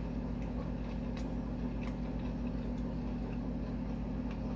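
Steady low hum of a running appliance motor, with a few faint, short clicks scattered through it.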